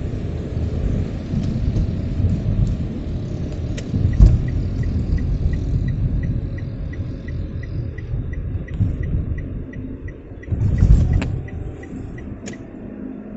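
A car driving on a wet road, heard from inside the cabin: a steady low rumble of engine and tyres with a hiss above it. There are louder bumps about four seconds in and, more strongly, around eleven seconds in. A faint, regular ticking, about three a second, runs through most of the middle.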